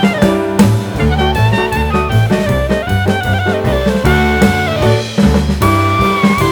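Background music: an upbeat jazzy track with drum kit, bass and a horn-like melody, with a steady beat.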